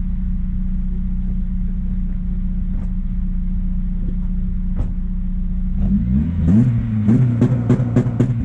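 Honda Civic Type R FN2's K20Z4 four-cylinder engine idling steadily through a Fujitsubo Power Getter single-exit exhaust. About six seconds in it is blipped several times in quick succession, the revs rising and falling, with sharp cracks among the blips before it drops back toward idle.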